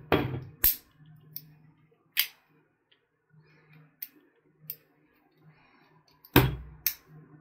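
Sharp metallic clicks and knocks of a stainless-steel multitool being handled as its knife blade is opened. The single loudest knock comes near the end.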